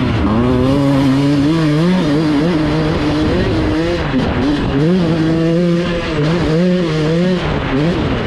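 Dirt bike engine revving up and down as it is ridden, its pitch holding, rising and dropping several times with throttle and gear changes.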